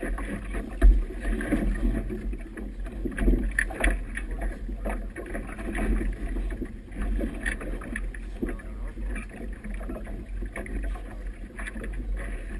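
Wind buffeting the microphone with a constant low rumble, over choppy river water splashing and slapping against a boat's hull in irregular bursts.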